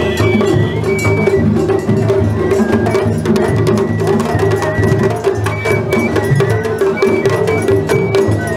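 Japanese festival-float hayashi music: taiko drums struck in a dense, steady pattern, with a high bamboo flute playing held notes over them.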